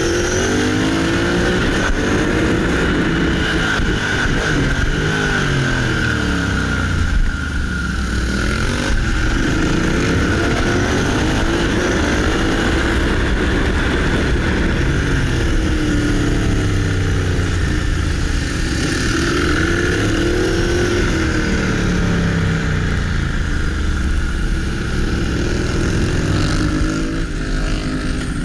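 Motorcycle engine heard from on board on a race circuit, its pitch climbing with each burst of acceleration and dropping back off the throttle, several times over.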